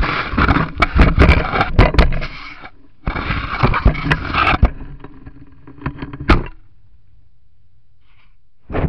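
An elk nosing and rubbing against a trail camera right at its microphone: loud scraping with sharp knocks in two spells of about two and a half and one and a half seconds, then a few lighter knocks, and one short brush near the end.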